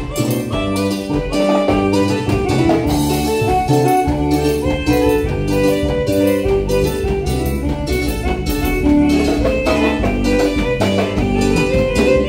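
Live band playing regional Mexican dance music with a steady beat.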